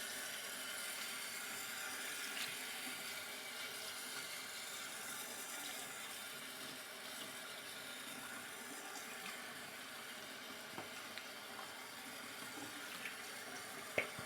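Water running steadily from a tap into a sink, with a few faint knocks, one just before the end.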